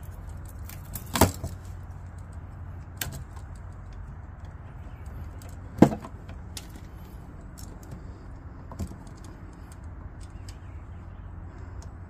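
Hand tools and stiff copper wire being handled at a switch box: scattered small metallic clicks and clinks, with about four sharper knocks, the loudest a little before the halfway point, over a steady low hum.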